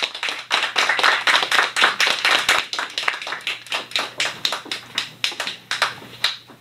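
Small audience applauding by hand, the clapping dense at first and thinning out toward the end.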